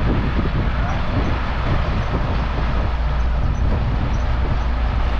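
Volvo FH truck driving, heard from inside the cab: a steady low engine drone under even road noise.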